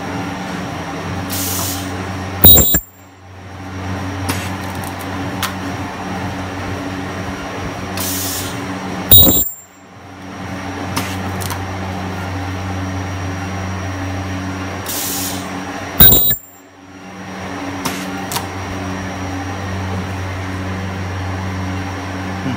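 Ultrasonic plastic welder spot-welding clear PET blister clamshell trays: three short, very loud, high-pitched weld bursts about seven seconds apart, each under half a second long. Each is preceded about a second earlier by a brief hiss, over a steady low machine hum.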